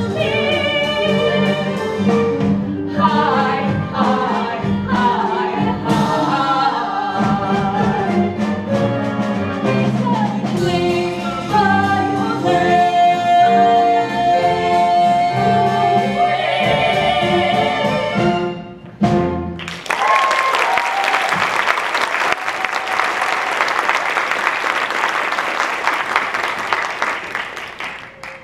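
A woman sings a musical-theatre number with instrumental accompaniment, other voices joining in, holding one long high note about halfway through. The song ends about two-thirds of the way in, and an audience applauds for the rest, fading near the end.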